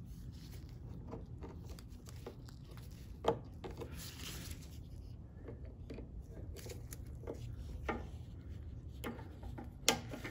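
Faint handling sounds with a few small sharp clicks, the loudest near the end, as pliers fit a hose clamp onto a lawnmower's rubber fuel line at the carburetor.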